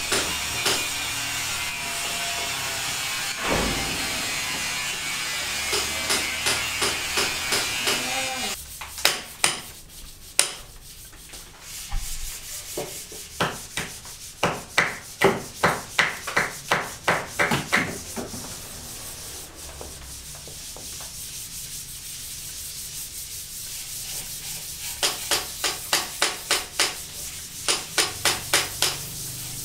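Rhythmic hand rubbing or scraping against the underside of corrugated steel floor decking, in runs of quick back-and-forth strokes about two or three a second. A denser, louder rasping fills the first several seconds.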